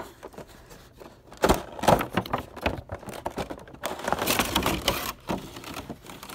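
Cardboard window box of a Funko Pop 3-pack being handled and opened: a couple of sharp knocks about one and a half to two seconds in, then scraping and rustling of cardboard and plastic packaging around four to five seconds in.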